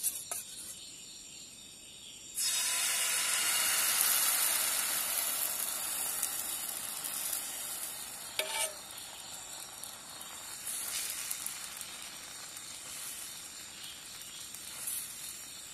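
Wheat dosa batter sizzling on a hot oiled pan. The hiss starts suddenly about two seconds in, is loudest at first and slowly dies down as the batter is poured and spread with a spoon. There is a short metallic clink near the middle.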